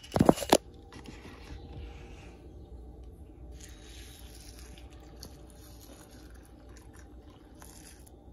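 A few sharp clicks and knocks, then milk being poured over dry rolled oats in a bowl: a faint, soft pouring noise.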